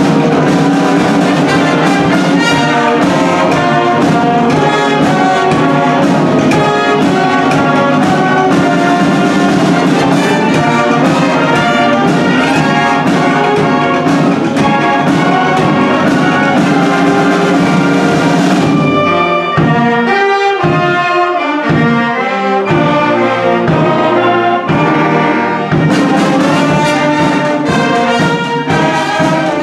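A marching band of brass and drums plays: sousaphones, trumpets and saxophones over snare and bass drums. About two-thirds of the way in, the bass and most of the drumming drop away for a lighter passage, and the full band comes back in near the end.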